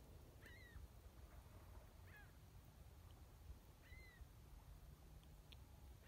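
Faint, short gull calls about every two seconds, some rising then falling in pitch, over a low background rumble.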